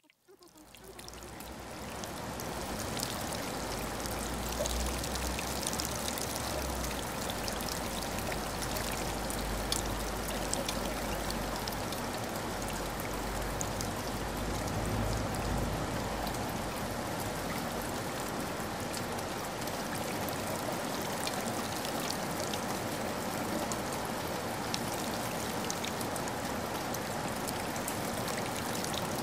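A steady rushing-water sound with scattered faint drip-like ticks, fading in over the first couple of seconds.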